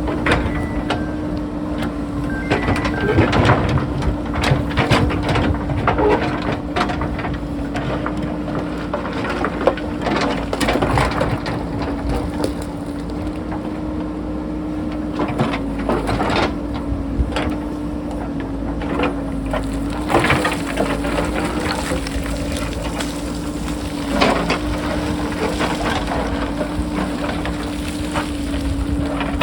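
JCB backhoe loader's diesel engine running steadily, its pitch sagging briefly under load a few times, while the bucket digs into broken rock with repeated knocks, scrapes and crunches of stones.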